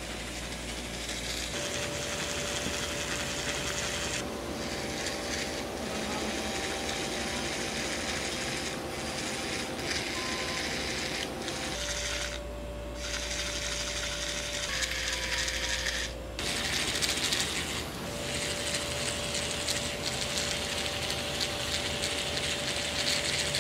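Motorised toy tarantula crawling, its motor and gears whirring and clicking, in spells broken by several short pauses.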